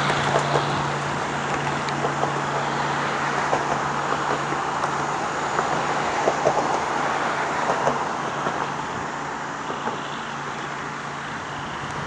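A speedboat's engine droning steadily and fading away near the end as the boat draws off, over a steady traffic-like hiss.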